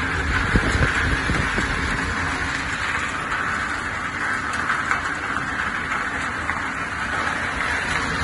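PP plastic washing line with squeezer running: a steady mechanical hum and rushing noise from the running machinery, with a few low knocks about a second in.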